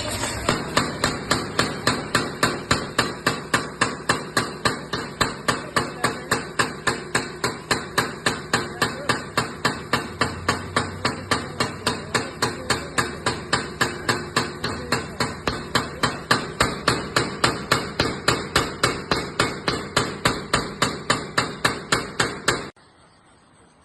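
15 kg power hammer striking steadily, about three blows a second, then stopping suddenly near the end.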